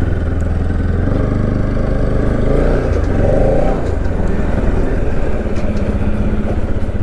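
Motorcycle engine running steadily under way, heard from the rider with road and wind noise.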